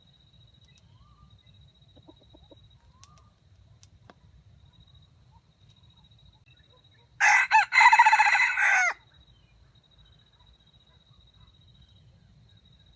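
A jungle fowl rooster crows once, a short crow of under two seconds broken into two quick notes and a longer closing part.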